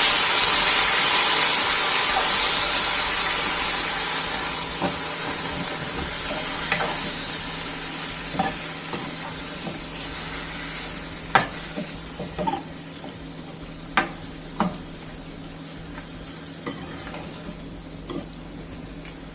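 Raw chicken pieces hitting hot oil and frying with cumin seeds in a pan: a loud sizzle that gradually fades, with scattered sharp knocks of a utensil stirring against the pan.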